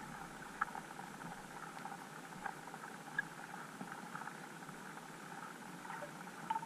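Underwater ambience picked up by a submerged GoPro: a steady, faint crackle of many small clicks and ticks, with a few louder single ticks.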